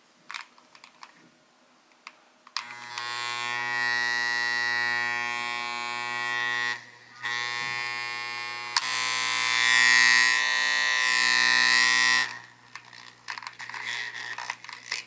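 Aoyama electric massager's motor running with a steady, loud buzz, cutting out briefly about seven seconds in, then running again before stopping; the unwanted noise the massager is making. Small clicks and handling knocks before and after it runs.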